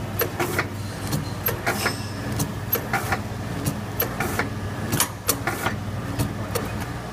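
Vertical form-fill-seal granule packing machine running: a steady motor hum with sharp clicks and clacks from its mechanism, several a second, as the film tube is formed into bags.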